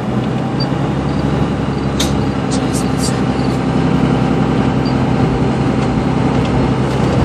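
Turbocharged road vehicle's engine running while driving, heard from inside the cabin as a steady drone that grows slowly louder. A few sharp clicks sound about two to three seconds in.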